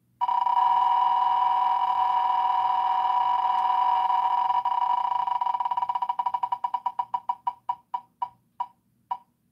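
Spinning prize-wheel tick sound effect played through a laptop's speakers. At first the ticks come so fast they blend into a steady beep, then they slow in the last few seconds to separate ticks about two a second as the wheel comes to rest.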